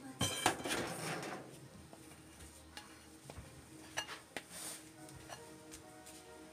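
A plastic spoon scraping and tapping against a bowl as mashed potato is scooped onto minced meat: a few sharp clinks and a scrape near the start, then scattered light taps. Faint background music with held notes.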